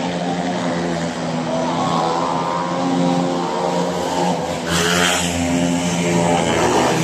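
Several speedway motorcycles' single-cylinder methanol engines revving at the start, then a sudden louder, harsher rush a little under five seconds in as they accelerate away from the start.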